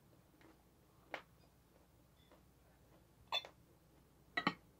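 A person eating: quiet chewing with a few sharp clicks, one about a second in, another past three seconds, and a louder double click near the end.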